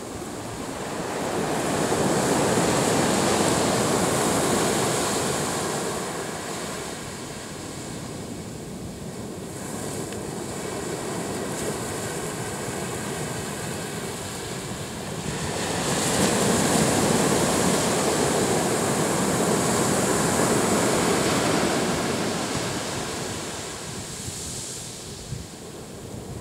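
Pacific Ocean surf breaking on a sandy beach and washing up the shore. It swells loud twice as two waves come in, with a quieter wash between them.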